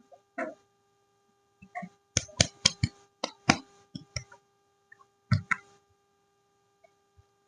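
Hands unpacking bars of soap: a series of sharp taps and clicks, several in quick succession about two to three seconds in, with a few softer rustles between.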